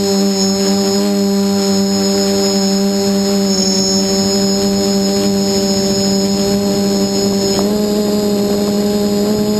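A quadcopter's SunnySky 2216 800KV brushless motors spinning GemFan 8x4.5 carbon props in flight: a steady droning hum with a thin high whine above it. The pitch shifts slightly a little under eight seconds in.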